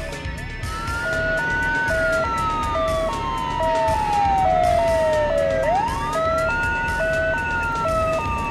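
Wailing siren sound effect for a toy fire engine: a tone that sweeps up quickly and then falls slowly, starting over about every five seconds, over a two-note hi-lo beeping that alternates a couple of times a second.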